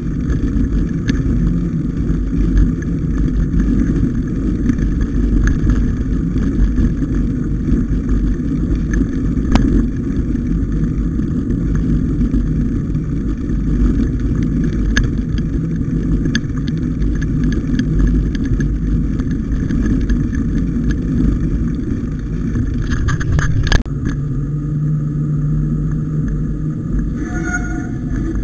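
Wind and ride vibration on a bike-mounted action camera during a mountain bike ride over a rough trail: a steady low rumble with scattered small clicks and rattles from the camera mount.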